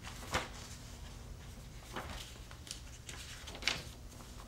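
Room tone with a steady low hum, broken by about five brief, soft knocks or handling sounds.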